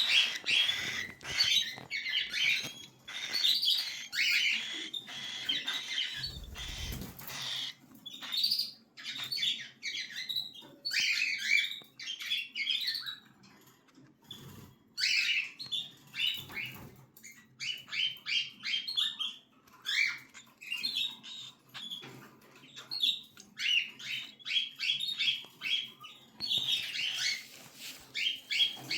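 Cockatiel chicks calling in bouts of quick, short, high chirps, with brief pauses between bouts. A brief low bump comes about six to seven seconds in.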